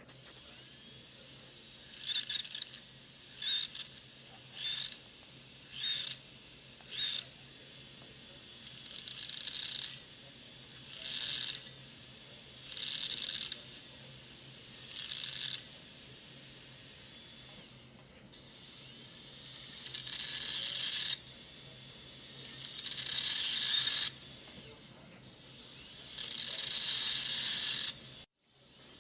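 Surgical drill with a Lindemann bur cutting in noisy, high-pitched bursts over a steady low hum. It starts with about six short bursts roughly a second apart, then makes longer passes of one to three seconds each.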